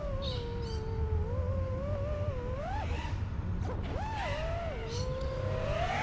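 FPV quadcopter's motors and propellers whining, the pitch wavering up and down with throttle and swooping sharply up twice near the middle, over a steady low rush of air. A couple of brief sharp knocks come around the middle.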